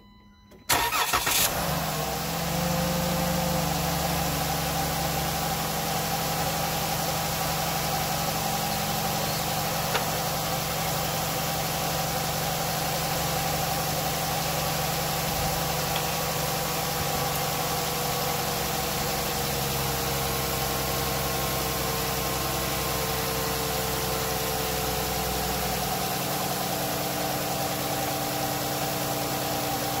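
Ram ProMaster van engine cranking and starting about a second in, then idling steadily, with the low rumble easing near the end. The engine is idling with the coolant reservoir open to circulate fresh coolant and purge air from the cooling system.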